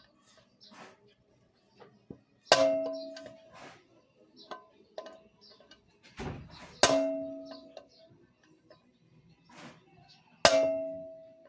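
Hammer striking metal: three loud ringing blows about four seconds apart, each ring dying away over about a second, with lighter knocks and taps between.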